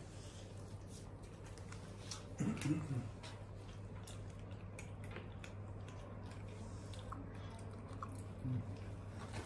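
Monkey chewing and biting dried banana: faint wet clicks and small crunches scattered throughout, with a short vocal sound about two and a half seconds in, over a steady low hum.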